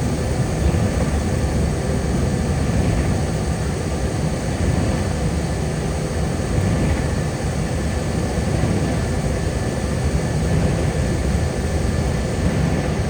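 Steady road noise inside a car cruising on a wet highway: a continuous low tyre and engine rumble with a hiss over it, holding level throughout.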